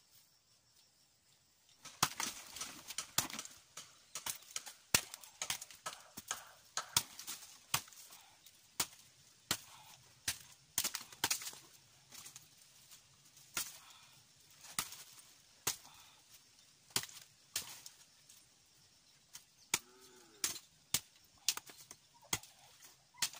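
A bolo (machete) chopping at a wooden stick, a run of sharp, irregular strikes about one or two a second, starting about two seconds in.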